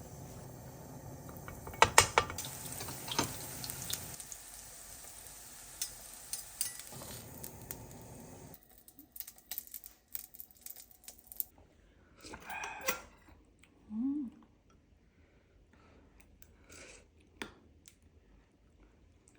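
Kitchen sounds: dishes and cutlery clinking and knocking over a steady hiss. The hiss cuts off abruptly about halfway through, leaving only scattered light clinks.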